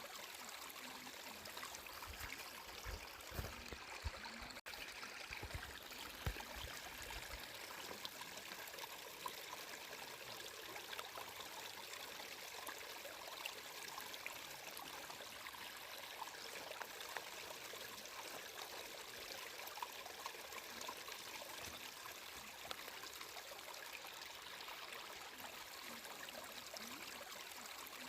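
Flowing water running steadily, an even rush with fine trickling detail, with a few low rumbles in the first several seconds.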